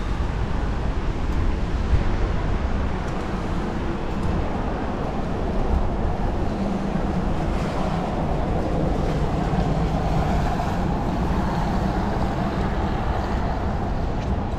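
Wet city-street ambience: a steady hiss of traffic on rain-soaked roads over a low wind rumble on the microphone. A vehicle's hum swells through the middle.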